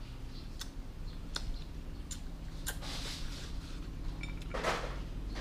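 A person eating: small wet clicks and smacks of chewing, and one short breathy burst about four and a half seconds in, over a low steady hum.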